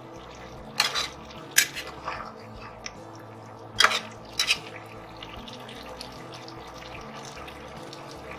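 Spatula scraping and knocking against a metal pot as a cauliflower, potato and egg curry is stirred: a handful of sharp, short scrapes in the first half, over a steady low background.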